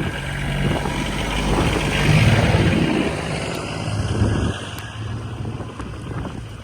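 A vehicle engine running steadily, loudest about two seconds in and dropping off in the second half.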